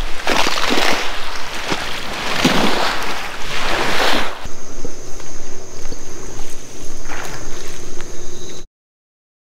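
Water sloshing and splashing close to the microphone in irregular surges, as someone wades through shallow lake water. Partway through it gives way to a quieter, steady background with a faint high whine, and near the end the sound cuts out to silence.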